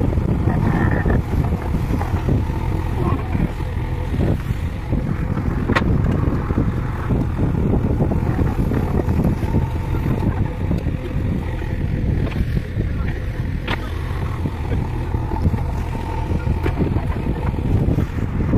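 JCB 3DX backhoe loader's diesel engine running under load as the backhoe digs and lifts soil, with a few sharp knocks.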